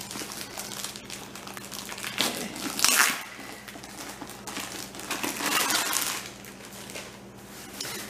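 Plastic packaging crinkling as it is handled, in irregular bursts, loudest about three seconds in.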